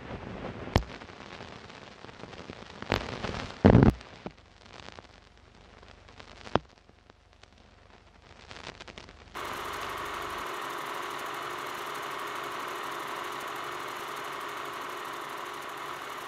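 Crackle and scattered sharp pops of a worn old film soundtrack, with the loudest thump a little under four seconds in. About nine seconds in, a steady hiss with a low hum starts.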